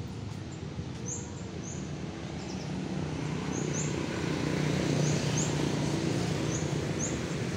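Steady road-traffic rumble, swelling through the middle as a vehicle engine passes. A bird's short high chirps come singly or in pairs every second or so.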